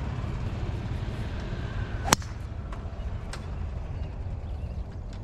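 A golf club striking a ball: one sharp crack about two seconds in, with fainter clicks after it, over a steady low rumble.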